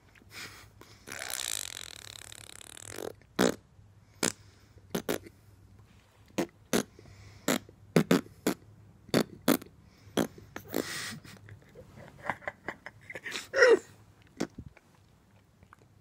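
A dog licking at close range: a snuffly sniff, then a string of short wet smacks of its tongue and mouth at irregular intervals, with a brief squeak near the end.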